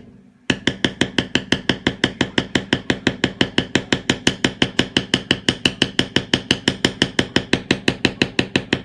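Mallet rapidly striking a metal leather-stamping tool into a leather belt, a steady run of about six sharp taps a second starting about half a second in.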